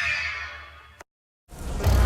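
Edited monster sound effects. A kraken-style call fades out over about a second and cuts to a half-second of silence, then the next creature sound fades in and builds into a loud, deep rumble.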